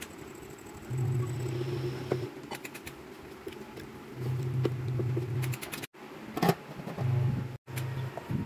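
Kitchen sounds at a pot of boiling soup: scattered light clicks and clinks from a pepper shaker and a stirring utensil, over a low hum that comes and goes. A louder clatter comes a little after two-thirds of the way through.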